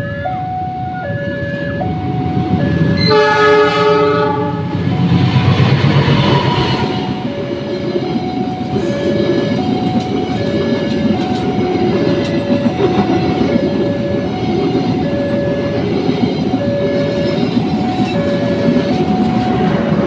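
Level-crossing warning alarm alternating steadily between two tones. About three seconds in, a CC206 diesel-electric locomotive sounds one horn blast lasting about a second. The train then rumbles past, its passenger coaches clattering over the rail joints.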